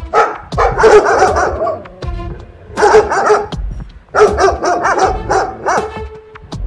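Dogs barking rapidly in three dense bursts, over background music.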